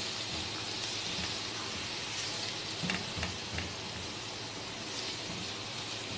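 Diced carrots and chopped garlic sizzling in oil in a nonstick frying pan as they are stirred, a steady hiss. Three light clicks of the spatula against the pan come about three seconds in.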